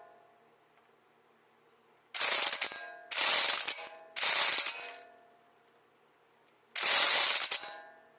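Bauer heavy-duty corded electric impact wrench hammering in four short bursts on a stuck CV axle nut, which is just beginning to turn loose. The last burst is the longest.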